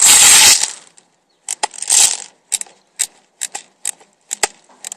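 Magazine of a cheap electric AK-47 BB gun being handled close to the microphone: a loud scrape, then a string of sharp, uneven plastic clicks, about two a second.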